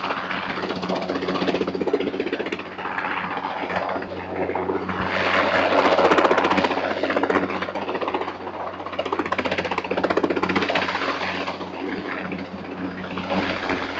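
Helicopter hovering overhead, its rotor beating fast over a steady engine drone, swelling louder around the middle.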